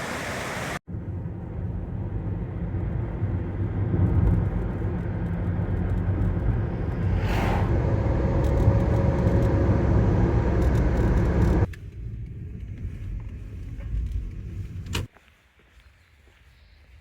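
Car driving on a road: a steady low rumble of engine and road noise. It drops to a quieter rumble about twelve seconds in and stops with a click about fifteen seconds in.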